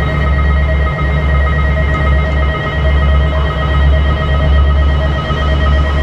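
Japanese level-crossing warning bell ringing steadily in a rapid repeating tone, over the low rumble of a KiHa 47-type diesel railcar running slowly past.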